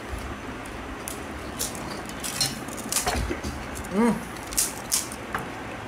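Eating at a table of golgappe (pani puri): small crackles as the hollow puri shells are poked open, with light clicks and clinks of steel bowls and glasses, scattered over a steady background hiss. A short hum from a voice about four seconds in.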